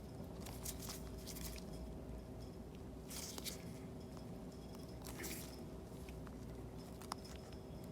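Faint small-parts handling at a repair bench: brief scratchy rustles and scrapes of tools and a small part being worked into place, with a sharp click about seven seconds in, over a steady low hum.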